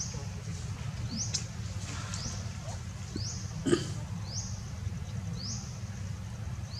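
A short, high chirp that rises and then levels off, repeating roughly once a second over a steady low rumble. A sharp snap comes a little past halfway.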